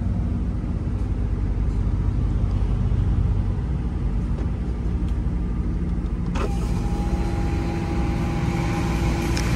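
Tractor unit's diesel engine running steadily at low speed, heard from inside the cab as the truck creeps along. About six seconds in, a steady motor whine starts and outside traffic noise comes in louder: the cab's power window is going down.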